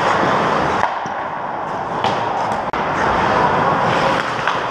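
Ice hockey skates scraping and carving on the ice in a rink, with a few sharp clacks of sticks and puck.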